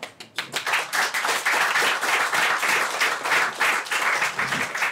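Audience applauding, dense clapping that breaks out just after the start.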